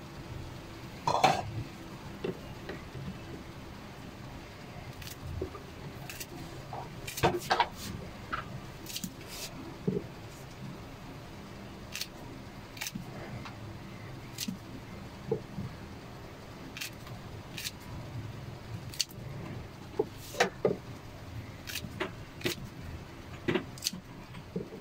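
Kitchen scissors snipping okra pods into a pot of ramen: irregular sharp snips and clicks, about one a second, over a low steady background.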